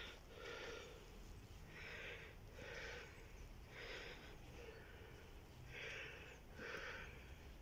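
A person breathing close to the microphone: faint, noisy breaths in a steady rhythm, about one every second.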